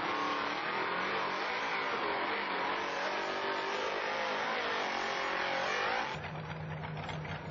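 A mud truck's engine revving hard, its pitch climbing and falling as the driver works the throttle. About six seconds in it gives way abruptly to a steadier, lower engine running near idle.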